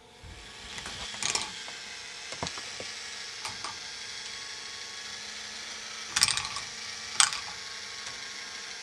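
K'nex ball machine running: its motor-driven lifts make a steady mechanical rattle that comes on just after the start, while the plastic balls clack sharply on the tracks several times, loudest about six and seven seconds in.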